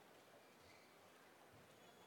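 Near silence: faint hiss, with two soft low thumps about a second apart.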